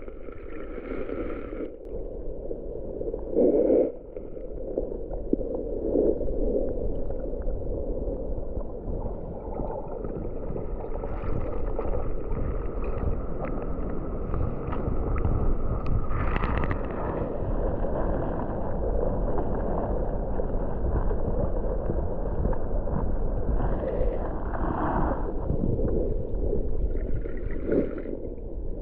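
Muffled water gurgling and sloshing over a steady low rumble, with a few short louder splashes, as from a camera held in or at the water of a rock pool.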